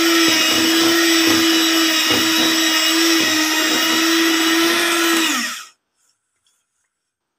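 Electric hand mixer running at a steady pitch, its beaters churning flour and water into batter, then switched off about five and a half seconds in.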